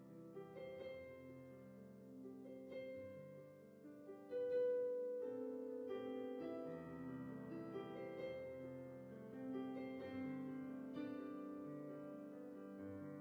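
Piano playing a slow passage of held notes and chords, with a louder note struck about four and a half seconds in.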